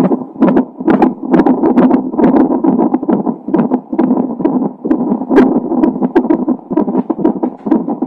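Unborn baby's heartbeat through a fetal heart monitor: a fast whooshing pulse at about two beats a second.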